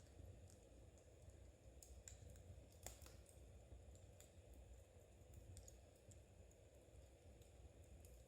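Metal knitting needles clicking faintly and irregularly as stitches are worked, over a low steady rumble.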